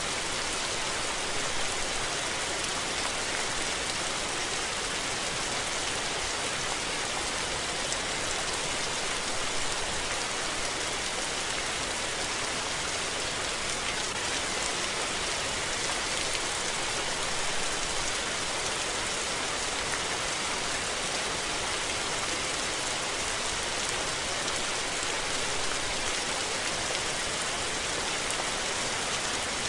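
Steady rain falling and pattering on surfaces, an even hiss with no let-up.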